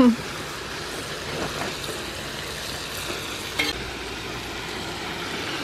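Mixed meats sizzling and frying in a steel discada disc over a propane burner, with a steady hiss, while a utensil stirs and scrapes through the meat; a couple of short scrapes stand out.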